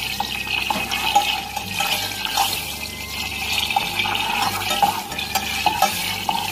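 Butter melting in a pan while being stirred with a spoon: a light sizzle with scattered clicks and scrapes of the spoon against the pan.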